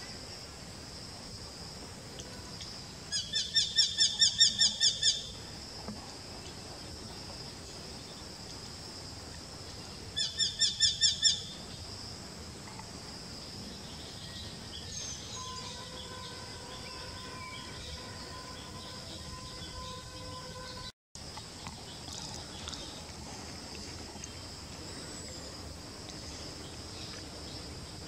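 Eurasian hobby calling: two bursts of rapid, evenly repeated sharp notes, the first about a dozen notes over two seconds, the second shorter at about seven notes some seven seconds later. A steady high hiss runs underneath.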